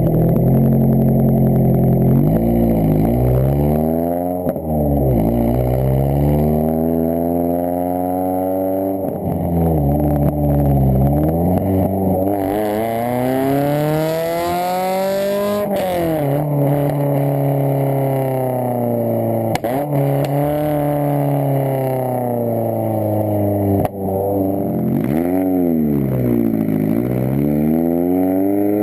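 NC Mazda MX-5's four-cylinder engine heard at the tailpipe through a Tomei ExPreme Ti titanium midpipe and muffler, with a very aggressive note. It is revved up and down over and over, each rev rising and falling in pitch, with one longer, higher pull about halfway through while the car is moving.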